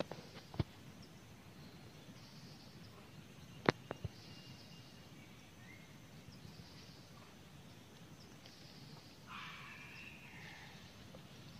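Quiet forest ambience with faint high calls of birds or insects. A few sharp clicks come at the very start and a quick cluster about four seconds in, and a louder call rises from the canopy about nine seconds in and lasts about a second.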